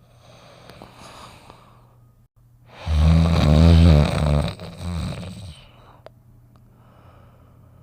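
Snoopy snoring in a cartoon: a faint breathy intake, then one loud, low, rattling snore about three seconds in lasting around two and a half seconds, and a soft breath out near the end.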